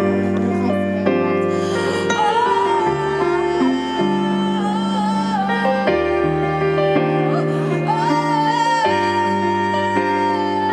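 A live pop song playing a passage without lyrics. Sustained bass notes change every second or two under a held melody line that wavers in pitch.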